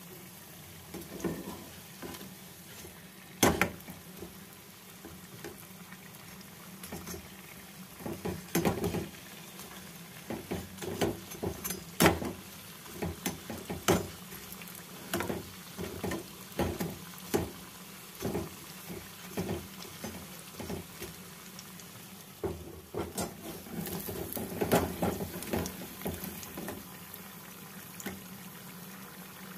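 Batter-coated potato cubes deep-frying in hot oil in a pan: a steady bubbling sizzle with frequent sharp pops and clicks, more of them from about eight seconds in, and a metal slotted spoon clinking against the pan as the pieces are stirred and lifted out.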